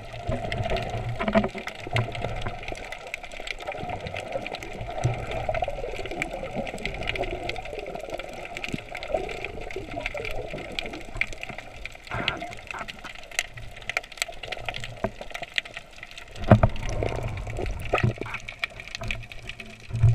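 Underwater sound heard through a GoPro housing: a steady wash of moving water with scattered sharp clicks, and a loud low rush of water about sixteen and a half seconds in.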